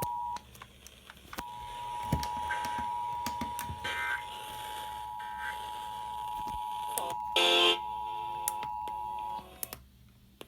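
Emergency Alert System two-tone attention signal (853 and 960 Hz sounded together) playing over FM radio during a Required Monthly Test: a steady dual tone that breaks off briefly about half a second in, resumes a second later and cuts off shortly before the end. A brief, louder burst of noise comes about three-quarters of the way through.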